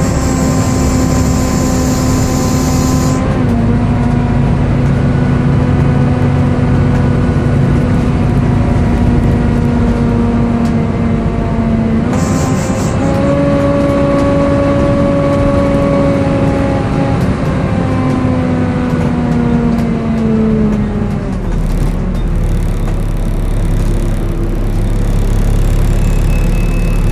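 Volvo B7TL bus's engine cooling fan making a loud, screechy, hoover-like whine over the engine. The whine holds a steady pitch with short breaks about 3 and 12 seconds in, then winds down in pitch from about 17 seconds and dies away, leaving the low engine rumble. A hiss comes at the start and again about 12 seconds in.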